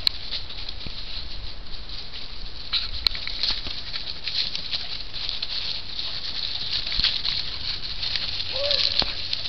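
Dry leaf litter and bare brush twigs rustling and crackling, with scattered sharp snaps, as something moves through thick winter undergrowth.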